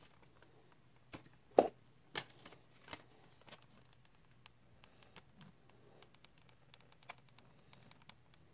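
Plastic blister packs on cardboard backing cards being handled and shuffled against each other: a series of clicks, knocks and crinkles, the loudest about one and a half seconds in, then lighter scattered taps.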